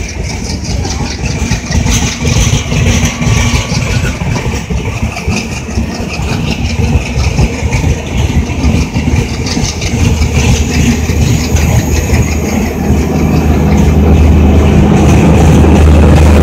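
AC double-decker passenger coaches rolling past close by, with a steady clatter of wheels on the rails. About two-thirds of the way through, a deep steady drone from the brake and generator car's diesel generator set grows louder as it draws level.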